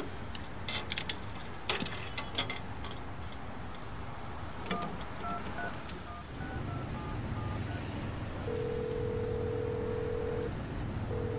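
Payphone being used: a few clicks as the handset is taken off the hook, then about ten quick touch-tone beeps as a number is dialled, then the ringback tone sounding in the earpiece twice, once for about two seconds and then again near the end.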